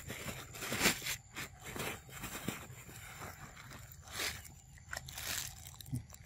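Scattered soft rustles and crunches, a louder one about a second in and a few more near the end, with no calls or voices.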